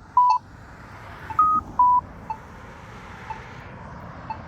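Accessible pedestrian signal at a crosswalk sounding two descending two-note beeps, one at the start and one about a second and a half in. Short soft locator ticks repeat about once a second.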